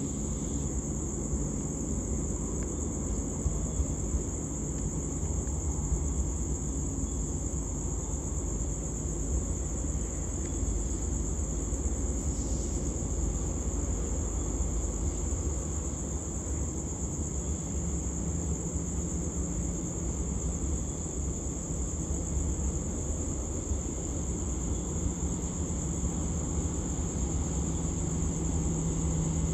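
Distant diesel freight locomotive running as a low steady rumble, its engine note growing louder over the last ten seconds as it draws nearer. A steady high-pitched whine sounds above it.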